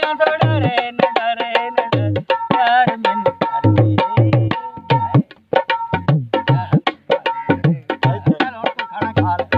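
A dholak, a two-headed barrel hand drum, played in a quick rhythm of deep strokes and sharp slaps, under a man singing a folk melody with a wavering voice.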